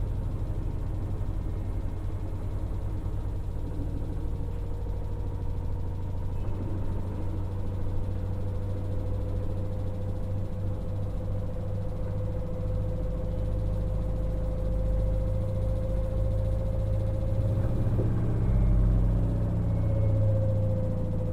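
LG FHT1208SWL front-load washing machine running, with its direct-drive motor giving a steady low hum and a whine that rises slowly in pitch, then drops near the end as the drum changes speed.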